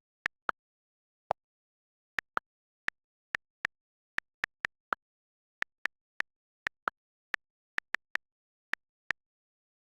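A series of short, sharp clicks at uneven spacing, about two a second, with dead silence between them.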